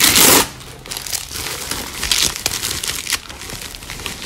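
Plastic packaging bag crinkling and rustling as hands pull it open and unwrap it, with a loud burst of rustling right at the start and irregular crackles after.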